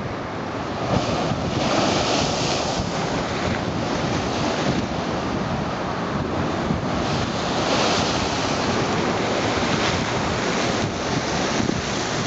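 Wind-driven Lake Michigan waves roaring and splashing against a concrete seawall, swelling louder about two seconds in and again near eight seconds. Wind buffets the microphone throughout.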